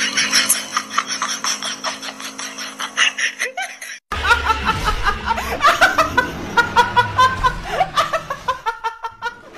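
A rapid run of short high-pitched sounds, about five a second, over a steady hum; after a sudden cut about four seconds in, a person laughs in quick repeated breaths.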